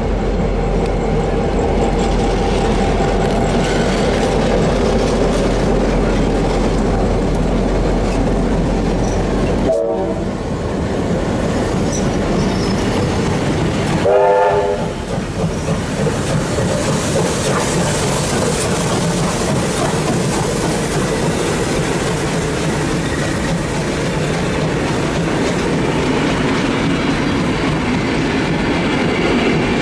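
V/Line N-class diesel locomotive N472 passing at slow speed with its engine running. The train's passenger carriages follow, rolling by with steady wheel clatter. Short horn blasts sound about ten seconds in and again about fourteen seconds in.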